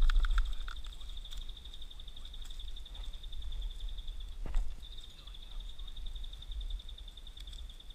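An insect trilling steadily at a high pitch, breaking off briefly about halfway and starting again, over a low rumble, with one sharp knock about halfway through.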